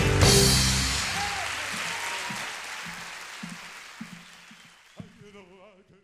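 A song's last guitar-and-band chord ends about a second in, and audience applause follows, fading out steadily to nothing.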